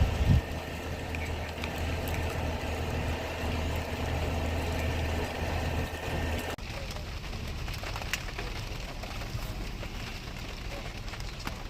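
A vehicle engine idling with a steady low hum, which cuts off abruptly about six and a half seconds in, leaving a fainter hiss with a few sharp clicks.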